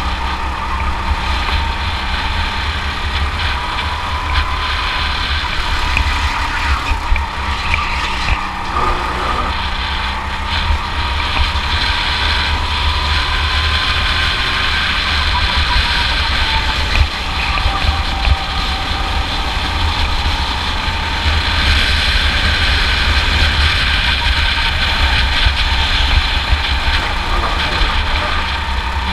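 Rental go-kart engine running hard while being driven around the track. Its note rises and falls gently as the kart slows for corners and speeds up again, over a constant low rumble.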